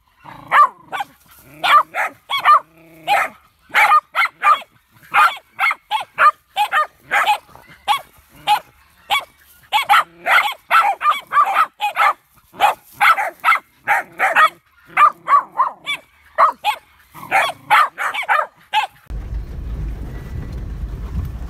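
Border collie barking rapidly and repeatedly, two or three barks a second, at a large lizard it has cornered. About 19 seconds in the barking stops and a vehicle's steady low rumble follows, heard from inside as it drives a rough dirt track.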